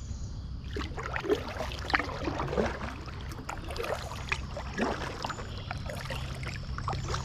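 Kayak paddling: the paddle blades dipping into the water, with irregular small splashes and drips of water running off the blades. A low steady hum runs underneath.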